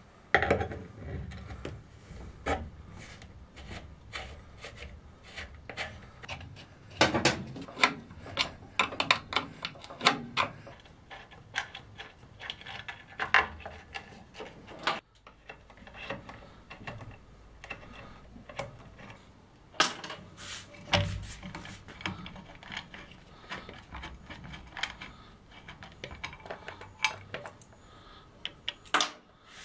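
Short metal clinks, clicks and taps of a steel spanner, nuts and fittings being worked loose on the flange of a pump station's pressure tank. The taps come irregularly in clusters, with a brief gap about halfway.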